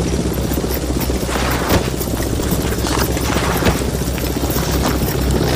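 Helicopter engine and rotor running steadily, a low pulsing rumble, with a few sharp cracks scattered through it.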